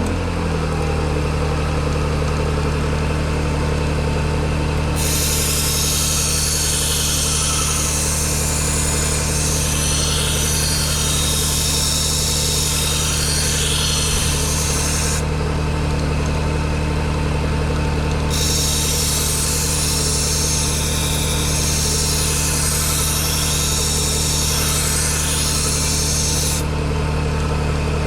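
Low-speed Bucktool 1x30 belt grinder running steadily, with a blade ground against the moving belt in two long passes, a harsh rasping hiss of steel on abrasive. The first pass starts about five seconds in and lasts about ten seconds; the second follows after a short break and stops shortly before the end.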